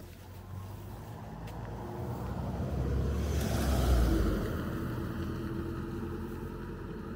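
A motor vehicle drives past on the road, with a low engine rumble. It grows louder to a peak about four seconds in, then fades away.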